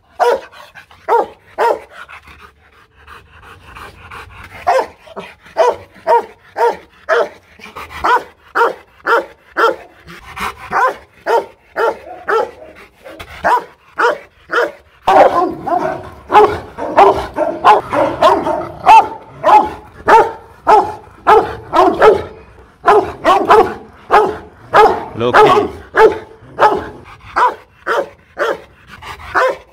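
A Rottweiler barking aggressively, straining and lunging on its leash, in a fast run of deep barks about two a second. There is a short lull a couple of seconds in, and the barking grows louder and denser from about halfway.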